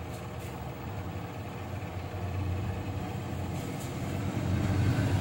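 A low, steady engine hum, like a vehicle idling, growing louder toward the end.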